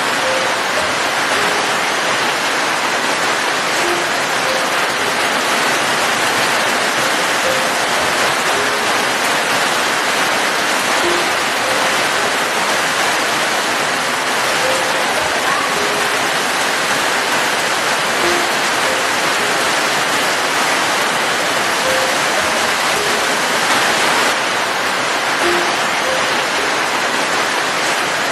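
Steady, even rain falling, with faint short pitched plinks every second or two.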